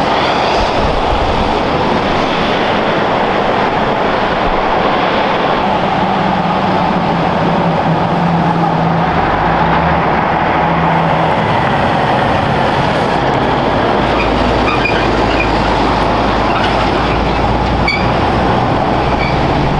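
Heavy trucks driving past on a winding highway: diesel engine note mixed with tyre and road noise, loud and steady.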